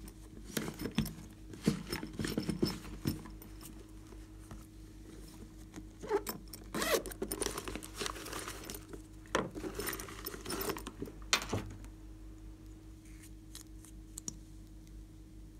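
Plastic toy cases handled and opened by hand: three spells of clicking, scraping and rustling, with a few light ticks near the end.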